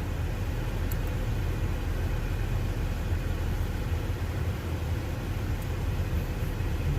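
Lexus IS350's 3.5-litre V6 idling steadily, a constant low rumble, with the air conditioning running.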